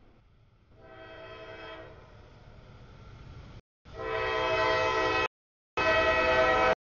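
Freight locomotive air horn sounding for a grade crossing: a quieter blast about a second in, then two much louder blasts as the locomotive reaches the crossing, each cutting off abruptly, over the low rumble of the train.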